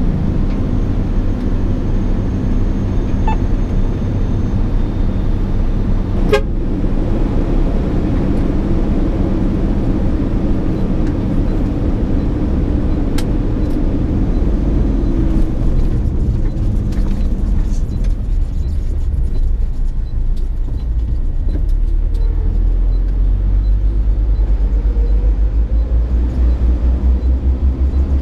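Diesel engine and cab noise of a SANY 6x4 dump truck driving on the road, a steady low rumble heard from inside the cab, with a sharp knock about six seconds in. In the last few seconds the engine note turns deeper and more pulsing.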